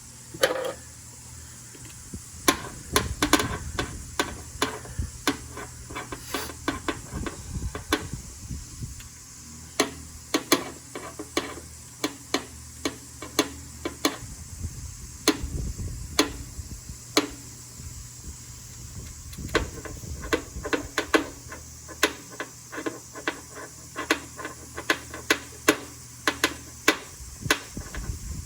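A long run of sharp, irregular clicks and knocks, often several a second, as tools and parts are handled and set down during work on a car's engine.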